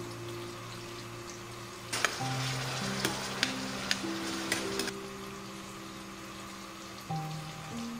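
Beef stew in a stainless steel skillet sizzling as a ladle stirs it, with about six sharp clicks of the ladle against the pan; this starts about two seconds in and stops about three seconds later. Soft background music plays throughout.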